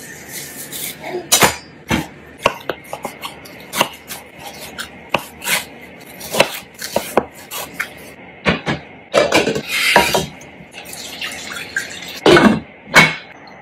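Kitchen clatter of cooking: a knife knocking on a wooden chopping board as raw chicken is cut, with bowls and a pot clinking in a run of separate sharp knocks. Near the end, liquid is poured from a jug into a pot.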